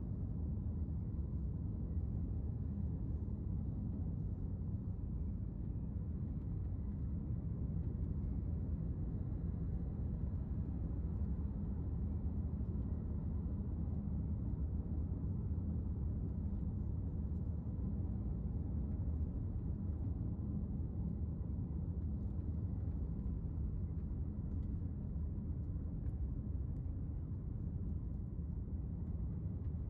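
Steady low rumble of a car driving along at road speed, the engine and tyre noise heard from inside the cabin.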